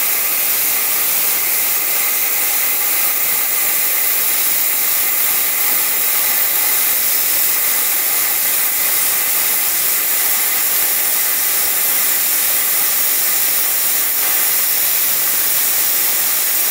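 Tenya CUT50 plasma cutter's PT31 torch cutting through 10 mm steel plate at 50 A: a steady, loud hiss of the plasma arc and compressed air, with a faint steady high tone under it.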